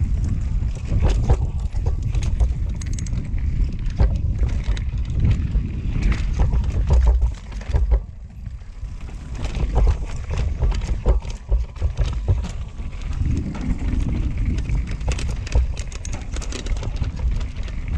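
Mountain bike riding fast down a rough dirt singletrack: a constant low rumble of tyres on dirt, with frequent clicks and rattles of the bike over roots and rocks. The noise drops away briefly about eight seconds in.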